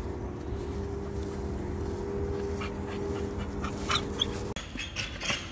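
A dog panting and giving short whimpers over a steady low hum; the hum stops about four and a half seconds in.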